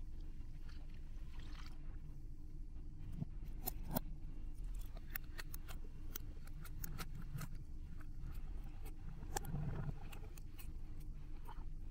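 Small scissors snipping into a rubber balloon packed with water beads, played backwards: a scattering of sharp clicks and snips starting about three seconds in, over a faint steady hum.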